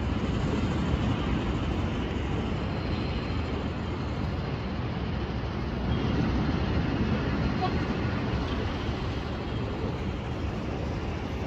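Wind buffeting the microphone on an open high-rise construction deck: a steady, rough rumble, heaviest in the low end, rising and falling slightly.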